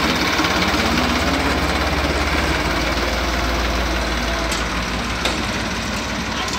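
Tractor engine running steadily with a low rumble while the rear-mounted hydraulic loader holds its filled bucket raised, with a sharp click about five seconds in.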